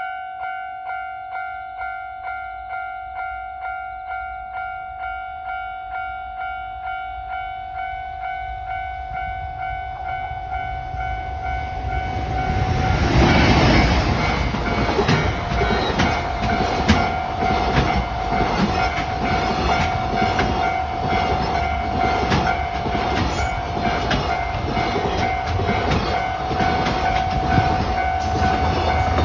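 Level-crossing alarm ringing steadily at about two strokes a second. About 13 seconds in, a JR Freight train led by an EF510 electric locomotive passes close by, and its freight wagons then clatter past with a rhythmic clickety-clack of wheels over the rail joints, the crossing alarm still ringing.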